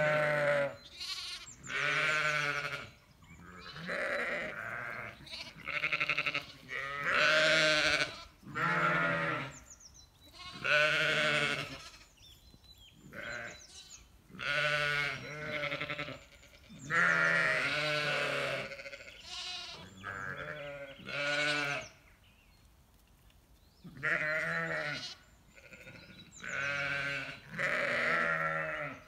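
Zwartbles sheep, ewes and lambs, bleating one call after another with short gaps between. Each call is a wavering, quavering bleat.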